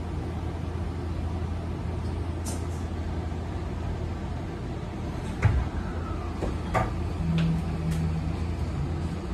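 Inside a Tokyo Metro 18000 series commuter train car: a steady low hum from the car's equipment. About halfway through there is a sharp thump and a brief falling tone, then a few light clicks and a short steady low tone.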